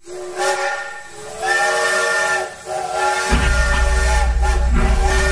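Steam locomotive whistle sounding in three blasts, the third held long. A low rumble comes in just after three seconds.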